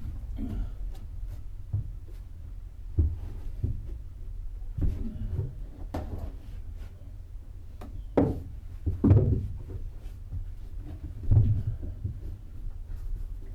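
Irregular knocks and clunks, as of hard objects handled and bumped against each other during hands-on work, over a low steady hum. The loudest knocks come about two-thirds of the way through.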